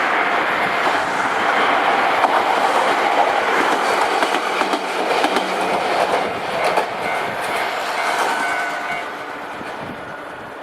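Kishigawa Line electric train passing over a level crossing, its wheels clattering over the rail joints. It fades as it moves away near the end.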